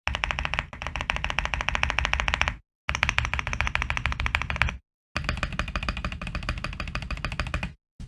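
Fast typing on an Akko Mod007 mechanical keyboard with lubed Tecsee Coffee tactile switches on a polycarbonate plate: a dense run of keystrokes. It comes in several runs of a second or more, each cutting off suddenly.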